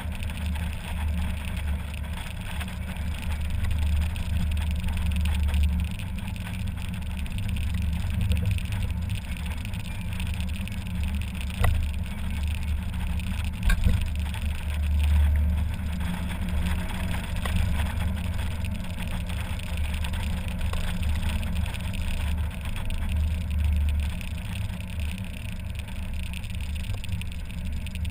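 Mazda MX-5 Miata's four-cylinder engine running while driving with the top down, with road noise and a steady low rumble in the open cockpit. There are a couple of brief knocks around the middle.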